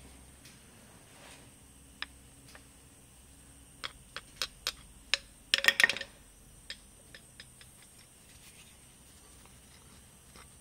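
Sharp clicks and clinks of hand work with tools: single ticks spread out, then a dense, louder cluster about five to six seconds in.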